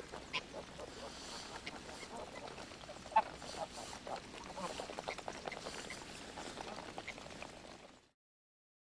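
A flock of greylag geese calling: a scatter of short honks and gabbling notes over a faint steady background, cutting off suddenly about eight seconds in.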